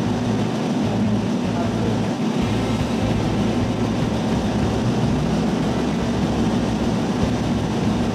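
Steady low hum of a diesel railcar's engine idling while the train stands at a station, heard inside the cab.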